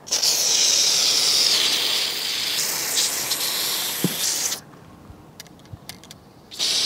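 WD-40 silicone spray aerosol can hissing through its extension straw into an aluminium awning rail: one long burst of about four and a half seconds, then a second burst starting near the end.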